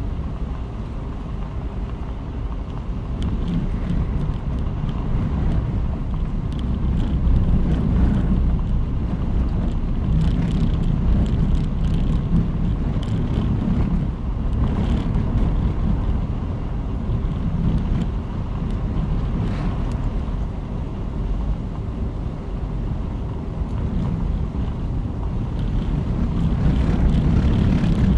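Car driving along: a steady low rumble of engine and tyres on the road, with wind buffeting the microphone, swelling slightly now and then.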